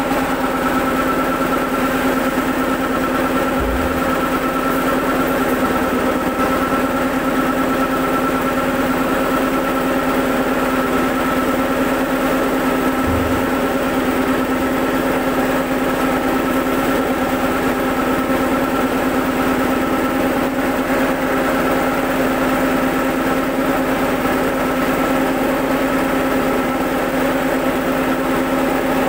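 Soybean hull-separating machine for tempe running steadily: a constant mechanical hum with a few steady tones, as split, dehulled soybeans are worked through it.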